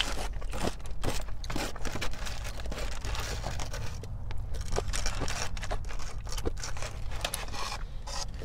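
Close-miked crunching and crackling of bites into crispy Korean fried chicken, with many sharp crackles packed together.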